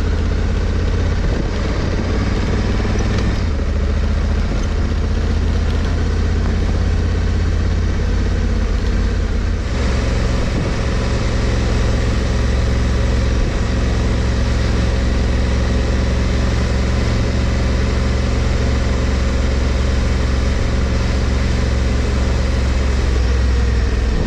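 Honda Africa Twin CRF1100L's 1084 cc parallel-twin engine running under way at low town speed, its note shifting twice, about three and ten seconds in, with a steady hiss of tyres on wet pavement.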